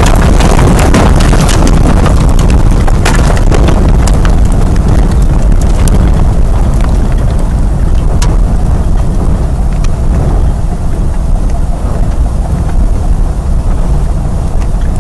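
Violent tornado wind roaring and buffeting the microphone, loud and continuous. Scattered sharp knocks and clatter through the first half thin out later, leaving the steady roar.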